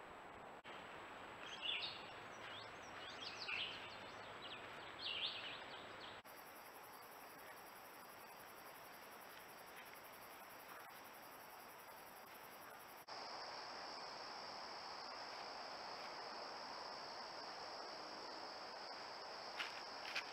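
Outdoor field sound from trail cameras: a bird sings a few short chirping phrases over a hiss, then a steady high insect buzz takes over, and later a steady insect chorus of crickets. A few soft clicks come near the end.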